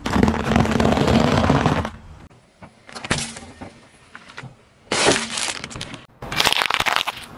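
A car tyre crushing food on asphalt. First comes a long, dense crunching as dry rusks break under it. Then there are a few short cracks, another burst about five seconds in, and a loud crackling spell near the end as cranberries are squashed.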